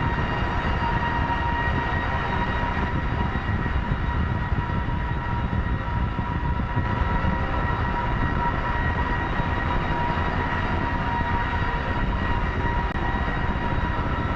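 Modular synthesizer drone-noise patch: a dense, rumbling low noise bed under several steady held tones, the most prominent a bright high tone, all sustained without a break.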